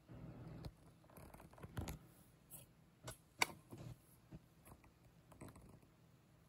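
Faint handling noise: soft rustling and scattered light clicks, the sharpest click about three and a half seconds in.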